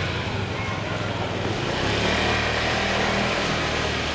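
Yokohama Minatomirai Railway Y500 series electric train moving slowly through the depot yard: a steady low hum from its running gear, with tones that drift slightly in pitch over a wash of noise.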